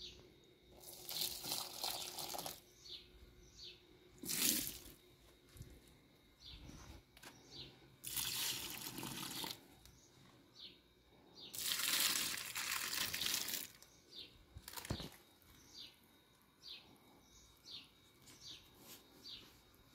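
Water poured from a mug onto potted plants in about four separate pours of a second or two each, the water splashing into the soil. Birds chirp in short repeated calls between the pours.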